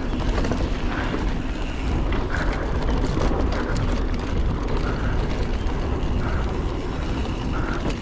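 Wind buffeting the action camera's microphone as a mountain bike runs fast down a dirt trail, with steady tyre roll and scattered small clicks and rattles from the bike over the ground.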